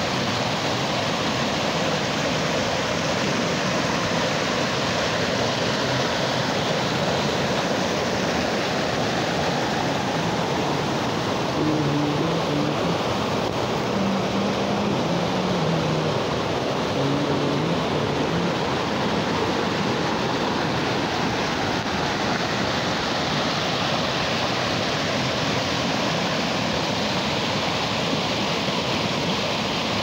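Small waterfall pouring over rocks into a pool, with the stream running high and fast between boulders after rain. It makes a steady, even rush of water.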